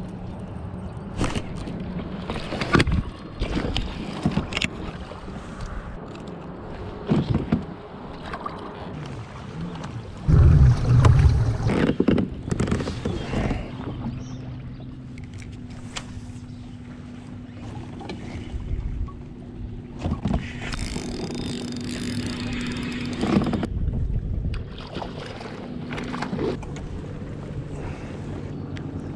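Sounds of fishing from a kayak: clicks and knocks from handling a baitcasting rod and reel, over water and wind noise. A loud low rumble comes about ten seconds in, and a steady low hum runs through the middle.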